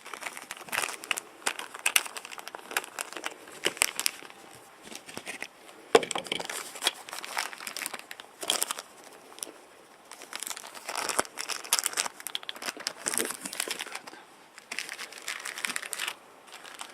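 Packaging being crinkled and torn open by hand while unwrapping coins: irregular crackling rustle, with a sharp knock about six seconds in.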